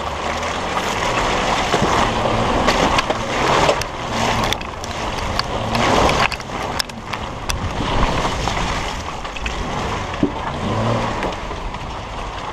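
Jeep Wrangler JK driving through mud: engine and tyre noise with wind on the microphone, broken by many sharp clicks of mud clods thrown up by the tyres spattering the camera and bodywork.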